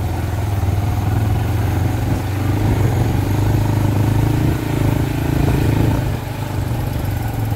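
Motorcycle engine running steadily while riding along a rough dirt track, easing off slightly about six seconds in.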